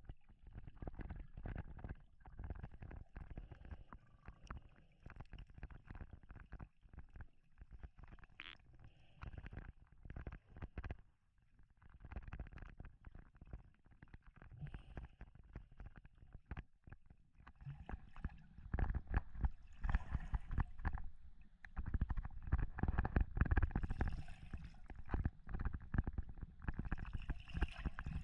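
Muffled underwater sound from a submerged camera: irregular knocks and rumbling of water moving against the housing as it is carried through the water. It grows louder in the second half.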